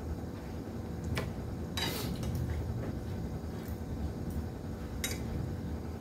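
A metal spoon clinking against a ceramic plate during a meal: a few separate clinks, the loudest about two seconds in and another near the end.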